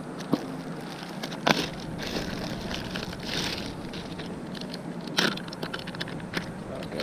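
Plastic bait packet and a clear plastic bag crinkling and rustling as they are handled, with a few sharp clicks and knocks, the loudest about one and a half seconds in and again about five seconds in.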